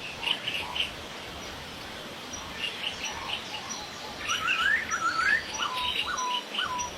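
Poksay hongkong laughingthrush calling: a few short chirps, then a quick run of rising slurred whistles and three falling whistled notes near the end, over faint outdoor background noise.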